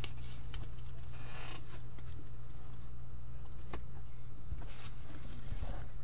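Trading cards and a foil pack being handled: a few soft clicks, a brief rustle about a second in and another near the end. Under it runs a steady low electrical hum.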